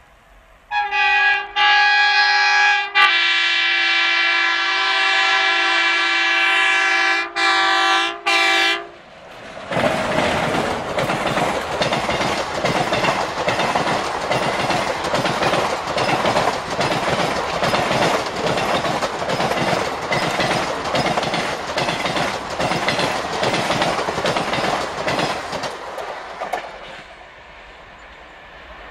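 Indian Railways diesel locomotive's air horn blowing a long multi-tone blast for about eight seconds, broken by a few short gaps. The passenger train then rushes past, its coach wheels clattering rhythmically over the rail joints, and the clatter fades away near the end.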